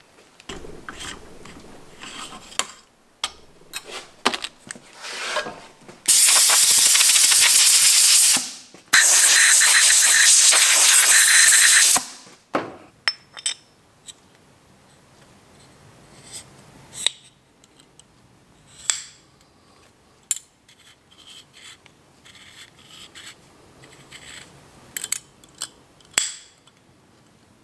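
Two loud, steady hissing blasts, about two and a half and three seconds long with a brief break between. Around them come small metal clicks and knocks as the Ford Model A distributor housing and its shaft are handled.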